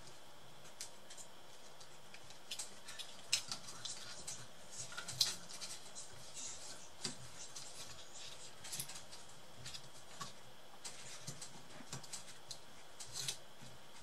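Faint, scattered small clicks, taps and scrapes of plastic and metal parts as hands handle a laptop's motherboard and power-jack cable inside its open plastic chassis, with one sharper click about five seconds in.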